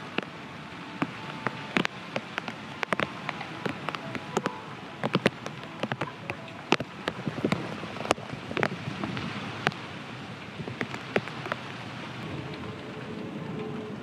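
Heavy rain: a steady hiss with large drops striking close by as sharp, irregular ticks, thickest in the first half.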